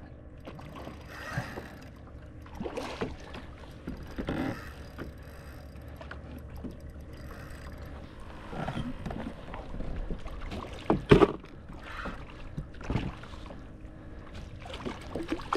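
Water splashing and scattered knocks around a kayak as a hooked redfish is fought close to the boat, with a sharper knock or splash about eleven seconds in.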